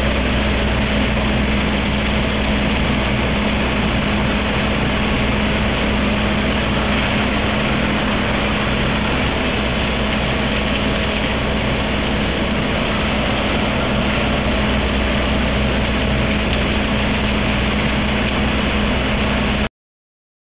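AZ spa crankshaft grinding machine running, its grinding wheel working a large crankshaft journal under coolant flow: a loud, steady mechanical hum with a constant low tone and a fainter higher one. It cuts off abruptly near the end.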